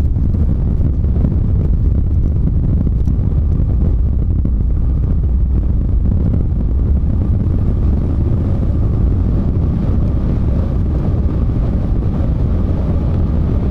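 Steady low rumble of engine and road noise inside a Volvo semi truck's cab while it is under way.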